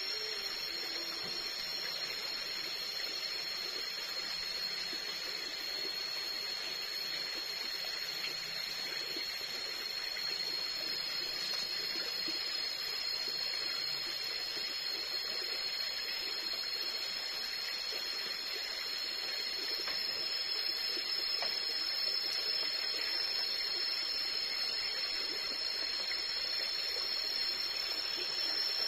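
Steady tropical forest ambience: a constant high-pitched insect drone over an even rushing hiss like running water, unchanging throughout.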